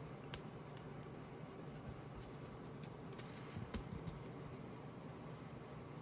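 Faint clicks and scratches of trading cards being handled, dying away about four seconds in to quiet room tone.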